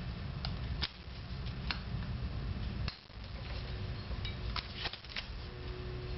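Light metallic clicks and ticks of a small screwdriver tip working a heavy steel wire piston pin circlip into its groove in an aluminium piston, scattered at first with a quick cluster of clicks about four to five seconds in, over a steady low rumble.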